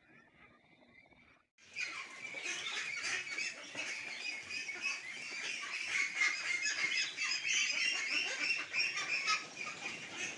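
A flock of 29-day-old ducks calling all together in a dense, continuous chatter of overlapping calls, which starts abruptly about a second and a half in after a faint lull.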